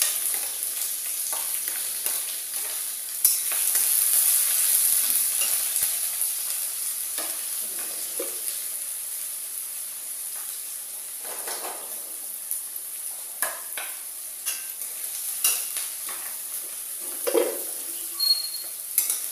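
Chopped onion and green chillies tipped into hot oil in a steel kadai: a sharp sizzle starts about three seconds in and slowly dies down as they fry. Through the second half a metal spatula scrapes and knocks against the pan as they are stirred.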